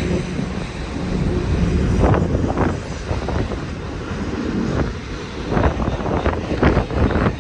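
Freight train passing close by: a steady low rumble, with irregular knocks and clatter from the cars starting about two seconds in.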